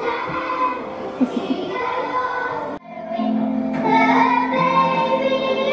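Children singing a song with music, from a school nativity recording played through a television's speakers. The sound breaks off abruptly about three seconds in and the singing resumes straight away.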